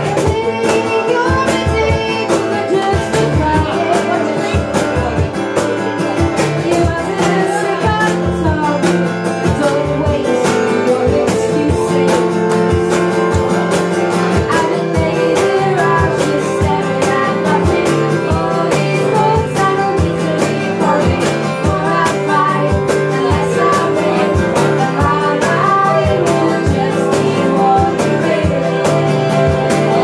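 A woman singing while strumming an acoustic guitar, with a steady strummed rhythm under the vocal line.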